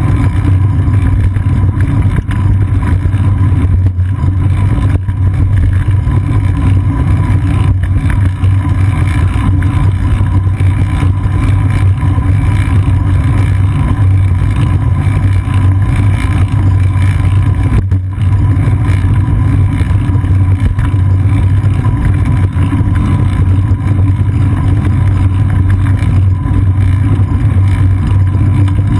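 Steady loud low rumble of wind buffeting and road vibration, picked up by a GoPro Hero 2 in its housing on a moving bicycle's seat post.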